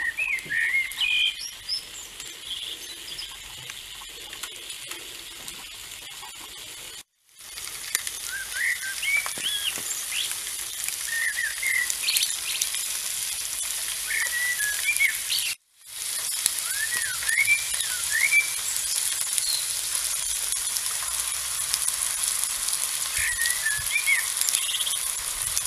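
Small birds chirping repeatedly in short rising and falling calls over a steady high hiss of salmon frying in a foil tray on a charcoal grill. The sound cuts out briefly twice.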